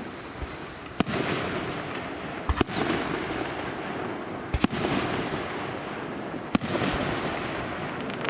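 Aerial fireworks shells bursting in the sky: sharp bangs about every two seconds, two of them in quick doubles, each followed by a lingering rumble of echo.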